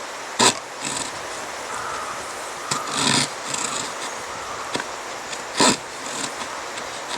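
Wood being worked by hand on a wooden deck: three loud, short scraping strokes about two and a half seconds apart, with lighter knocks and rubbing between.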